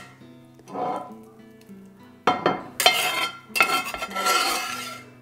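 A metal spatula scraping cooked ground sausage out of a cast iron skillet, with one scrape about a second in and then a run of scrapes and clinks from about two seconds in, over soft background music.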